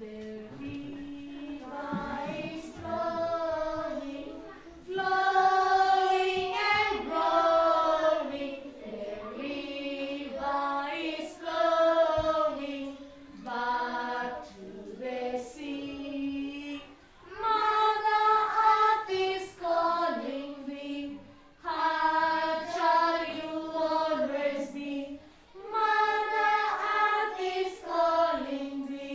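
A group of young children singing together unaccompanied, in short phrases of held notes with brief pauses between them.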